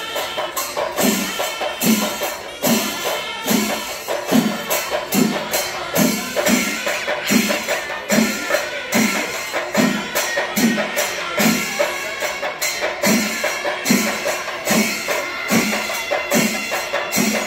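Kerala temple percussion ensemble playing: a deep drum beat a little faster than once a second under dense, rapid drum and cymbal strokes.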